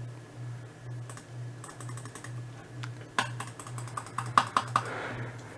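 Runs of quick clicks from a computer keyboard being tapped, the loudest cluster about four and a half seconds in, over a low hum that pulses about twice a second.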